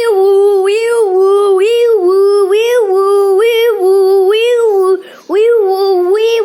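A child singing a wordless tune in a high voice, holding notes with quick upward slides between them, with a short break about five seconds in.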